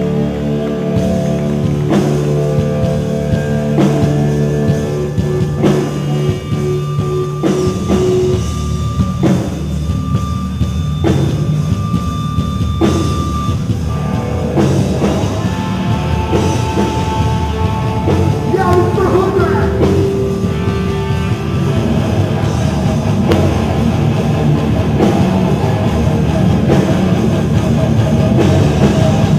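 Hardcore punk band playing live and loud: held distorted guitar chords over heavy drum hits about once a second, turning denser and busier around halfway through, with vocals over it.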